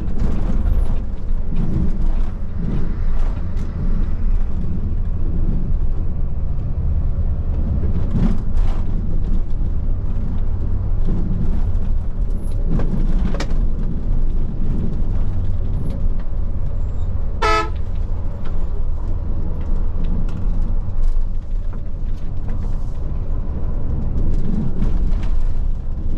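Steady low rumble of a bus in heavy city traffic, with a brief vehicle horn toot about two-thirds of the way through.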